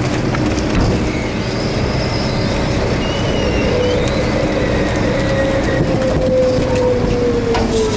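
31-cubic-yard ZR garbage truck's engine and packer hydraulics running under load while it compacts wet trash in the hopper, with a steady hum and thin whines that slide lower in pitch near the end. Wind noise on the microphone over it.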